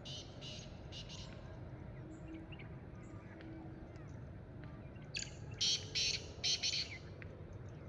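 Black francolin calling: a harsh, rasping phrase of a few grating notes at the start, then a louder phrase of about five notes about five seconds in.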